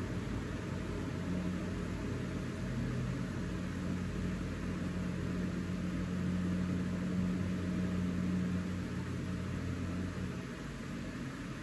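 Steady low machine hum over a constant hiss; the hum stops near the end.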